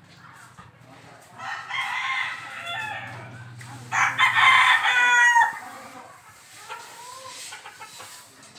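Roosters crowing: two long crows about two seconds apart, the second louder.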